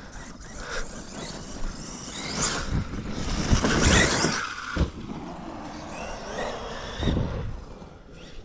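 A radio-controlled truck's electric motor whining as it revs up and down, with noise from the tyres on the ground. The run is loudest about four seconds in, and the motor swells once more near the end.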